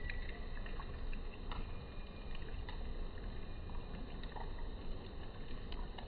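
Steady low outdoor background rumble, with faint short ticks scattered through it.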